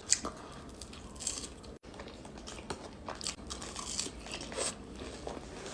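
A person eating close to the microphone: quiet bites, crunching and chewing in short irregular clicks and crackles.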